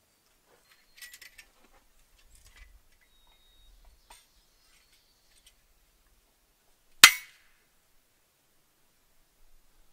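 A single sharp metallic clack with a brief ring about seven seconds in, after a few faint light clinks about a second in.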